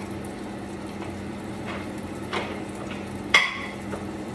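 Spam frying in oil in a pan on a gas stove, a steady sizzle. A few light knocks sound over it, the loudest a sharp clink with a short ring a little over three seconds in.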